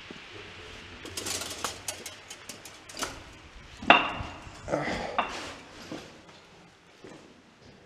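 Irregular knocking and clattering of metal and loose debris inside a concrete bunker passage, with footsteps. The loudest sound is a sharp metallic clank about four seconds in that rings briefly.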